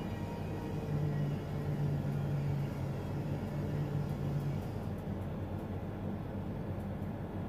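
Steady low rumbling hum. A low steady tone sits on it from about a second in until about four and a half seconds in.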